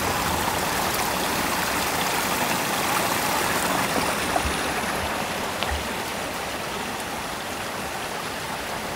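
Shallow rocky creek babbling steadily over and between stones, a continuous rushing of water that eases slightly in the second half.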